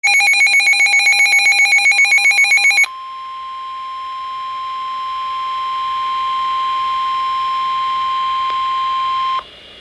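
NOAA Weather Radio emergency alert: a rapid electronic beeping, about five pulses a second, for the first three seconds, then the steady 1050 Hz warning alarm tone. The tone cuts off suddenly about half a second before the end, leaving faint radio hiss.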